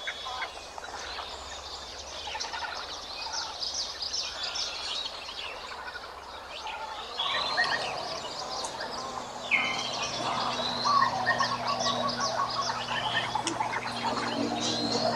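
Birds chirping and calling, with many short high chirps and whistles overlapping in a dense chorus. About seven seconds in, the background changes and a faint low steady hum comes in under the birds.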